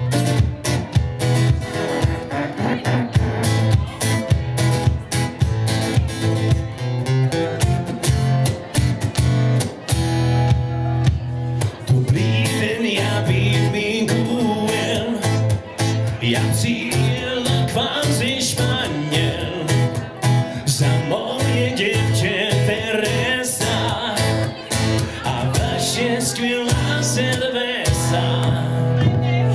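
Live music: an acoustic guitar strummed in a steady rhythm, joined by a man singing from about twelve seconds in.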